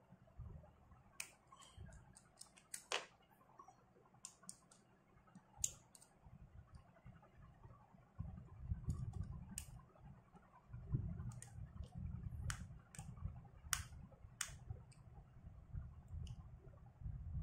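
Scattered small clicks and taps of a screwdriver and metal parts of a Fanshun FK1000 spinning reel being handled as the reel is taken apart, over a low rumble of hand movement.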